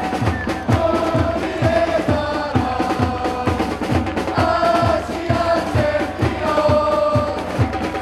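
Football supporters chanting together in long held sung notes over a steady, regular bass drum beat.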